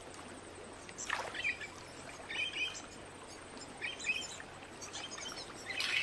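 Wild birds chirping in about four short bursts a second or two apart, over a faint steady outdoor background.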